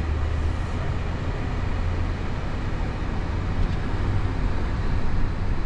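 Steady low rumble of a four-wheel-drive vehicle driving, engine and road noise heard from inside the cab.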